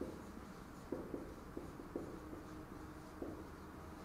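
Marker writing on a whiteboard: a run of short, faint strokes and squeaks.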